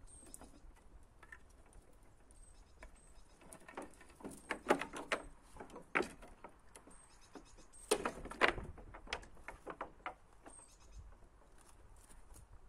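A wooden pallet gate being unfastened and pushed open: a run of knocks, clicks and rattles of wood and metal fittings, loudest in a cluster around the middle.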